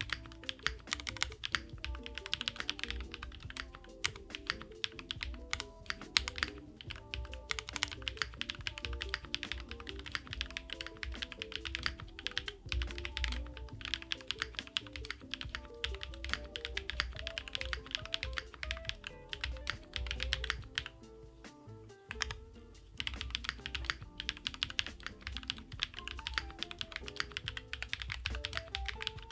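Typing on a Sakura Studio Fuji 75 mechanical keyboard with an aluminium plate and 3204-lubed JWK Night Sakura switches: a fast, dense run of keystrokes with a short break a little past the middle. Soft background music plays underneath.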